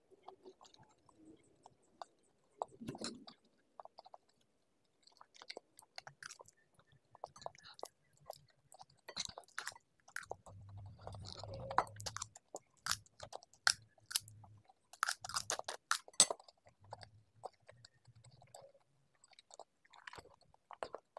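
Close-up eating sounds of spicy Samyang instant noodles: chewing and slurping with scattered sharp wet clicks, which come thicker and louder a little past the middle.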